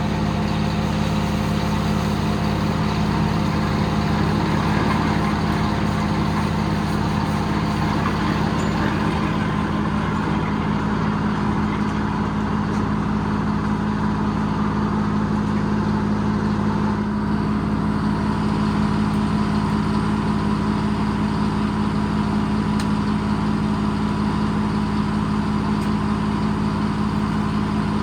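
Detroit Diesel engine powering a circle sawmill, running steadily.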